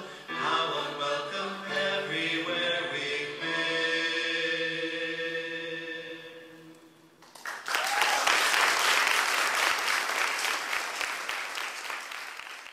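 The dance's accompanying music, with voices singing held chords, fades out about seven seconds in. Audience applause then breaks out and tapers off near the end.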